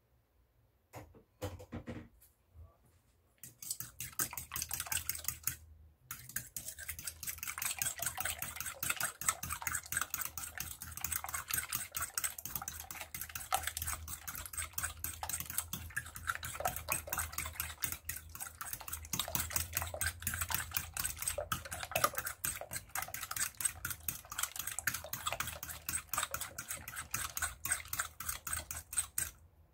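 Three raw eggs being beaten by hand in a glass mixing bowl: rapid, steady clicking of the utensil against the glass. It starts a few seconds in, pauses briefly, and carries on until just before the end.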